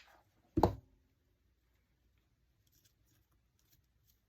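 A single loud, dull thump about half a second in, following a short click, then faint light handling ticks near the end.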